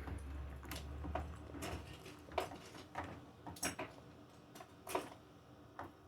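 Irregular small clicks and taps of plastic parts and a tool being worked at a stuck piece inside an opened Acer laptop, about eight sharp ticks spread unevenly.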